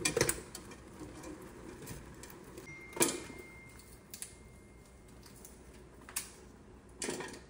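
Kitchen handling noises: a few separate knocks and clatters of cookware and utensils, the sharpest about three seconds in, with a faint thin steady tone for a couple of seconds around it.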